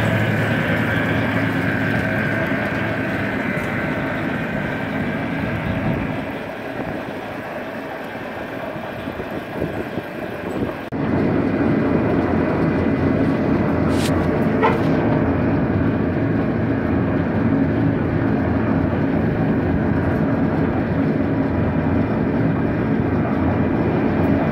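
A steady engine-like mechanical drone, loud and even. It dips for a few seconds in the middle and comes back abruptly about eleven seconds in.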